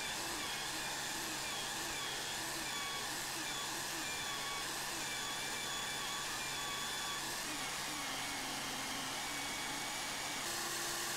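Electric drill clamped in a vise, running steadily and spinning a polishing wheel while a metal watch bracelet is held against it: an even motor whine over a rubbing hiss. The tone shifts slightly near the end.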